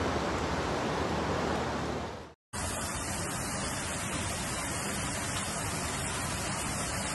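Steady rush of floodwater, fading out about two seconds in. After a brief gap, the steady roar of a flash-flood torrent surging down a street starts up again.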